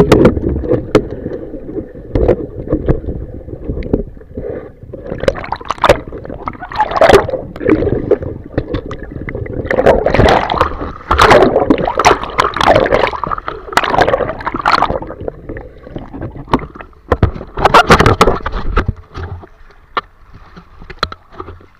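Water gurgling and rushing against a camera held underwater, with irregular knocks and bumps as the swimmer moves along a riverbed. It gets much quieter near the end as the camera comes out at the surface.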